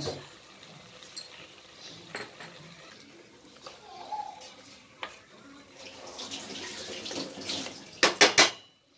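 A wooden spoon stirring thick, wet mutton masala in an aluminium pressure-cooker pot, with soft wet scraping and a few light knocks. Near the end comes a quick cluster of louder knocks of the spoon against the pot.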